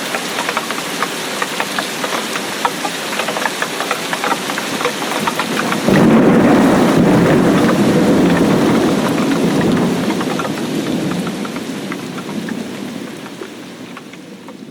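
Tropical rainstorm: heavy rain hissing, with many separate drops ticking on a surface. About six seconds in, thunder breaks loudly and rumbles, slowly dying away, and the rain fades out toward the end.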